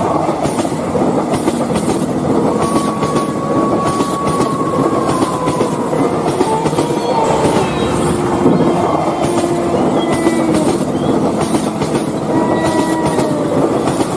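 Train running, heard from inside a carriage: a steady rumble and rattle with the clickety-clack of the wheels and thin drawn-out squealing tones that slowly slide in pitch.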